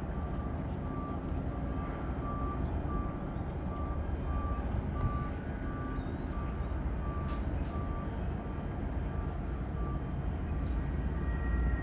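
Steady low rumble of machinery with a short high electronic beep repeating about three times every two seconds, like a vehicle's backup alarm. A thin steady higher tone comes in near the end.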